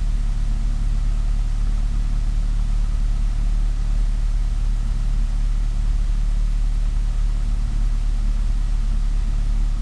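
Cessna 172's engine idling steadily, a constant low hum heard from inside the cabin.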